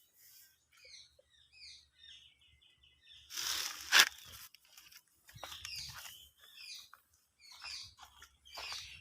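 Squirrel giving high, short, falling alarm chirps, singly and in a quick run, with a loud harsh burst ending in a sharp click about three and a half seconds in.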